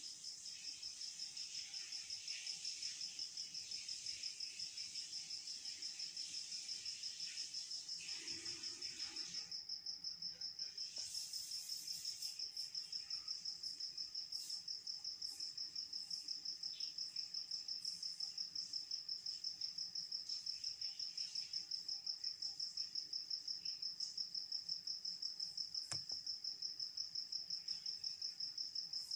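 An insect's steady, high-pitched pulsing trill, with one click near the end.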